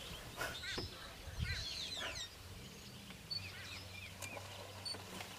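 Birds calling in short chirping notes through the first couple of seconds, fainter later, over a low steady hum that comes in about two seconds in.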